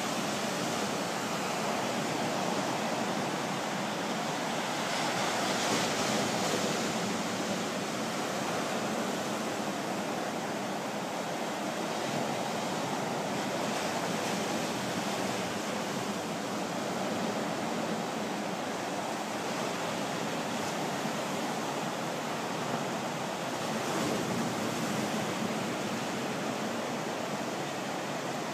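Ocean surf breaking on a sandy beach: a steady rushing wash of waves that swells a little about six seconds in and again near the end.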